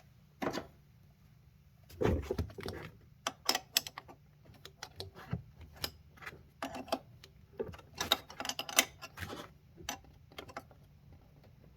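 Hand ratchet wrench clicking in short irregular bursts, tightening down the fasteners of a newly fitted high pressure fuel pump.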